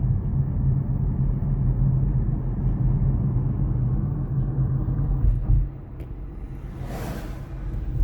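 Heavy, steady low engine rumble from a vehicle. The rumble drops off sharply about six seconds in, a brief rush of noise follows, and the rumble picks up again near the end.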